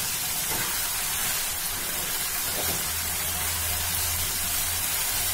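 Onions, capsicum and green chillies sizzling in oil and sauces in a kadai over a high gas flame, a steady hiss, while being stirred with a perforated metal spoon.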